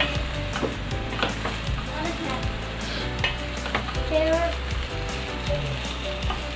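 Yard-long beans and pork sizzling in a stainless steel pan over a gas flame while a wooden spatula stirs them, with short irregular scrapes and knocks of the spatula against the pan.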